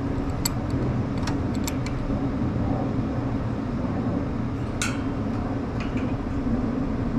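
Steady low machinery hum, with a handful of light clicks and taps from handling small metal parts and a screwdriver.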